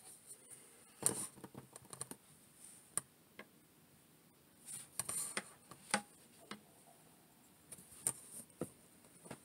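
Sparse light clicks and taps with a few brief rustles: small handling noises in a small room.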